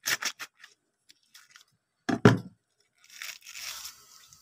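A raw globe artichoke being cut in half with a knife: crisp, crackly cutting strokes through the tough leaves at the start, a louder knock about two seconds in, then a longer tearing rasp as the two halves are pulled apart near the end.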